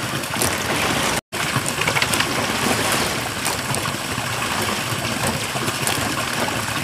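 Steady rushing of running water, like a stream, with a few light knocks of dried corn cobs being set down on bamboo slats. The sound breaks off for an instant just over a second in.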